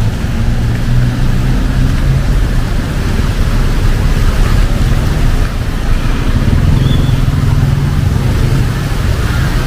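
Vehicle engines running on a flooded street, with a low engine hum that is strongest about a second in and again near the end, over a steady wash of rain and sloshing water.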